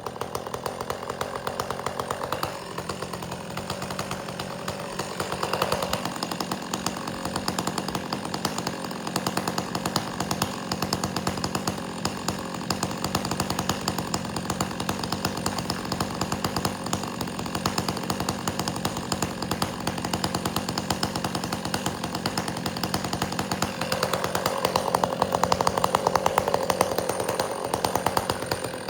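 Two-stroke chainsaw running continuously while bucking firewood, its engine note shifting a few times as the cut loads and unloads it.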